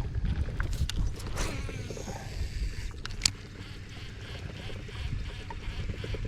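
Low rumble of a small fishing boat on the water, with a few light clicks and knocks; the sharpest click comes about three seconds in.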